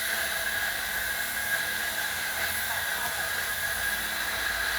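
Steady background hiss with a faint constant high whine, and no distinct sound event.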